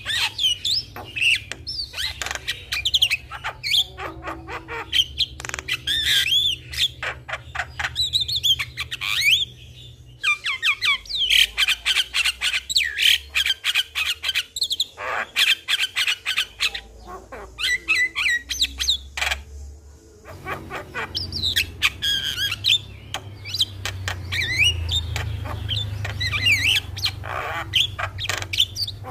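Javan mynas (jalak kebo) calling: a dense, continuous medley of harsh squawks, rapid clicks and gliding, warbling whistles, broken by short pauses, over a low steady hum.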